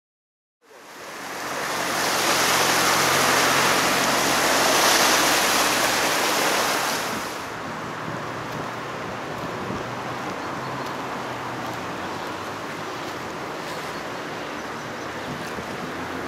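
Steady rush of a swollen river in flood, fading in from silence. It is loud and hissy for the first seven seconds or so, then drops suddenly to a quieter, duller steady flow.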